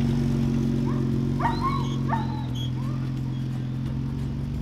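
A German Shepherd gives a few short, high yelps that bend in pitch, the two loudest about a second and a half and two seconds in, over the steady low running of a Jeep Wrangler's engine as it creeps along a dirt track.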